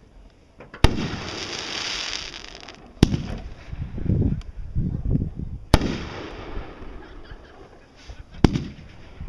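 Fireworks going off: four sharp bangs at roughly even spacing, about every two and a half to three seconds. The first is followed by a couple of seconds of hissing crackle.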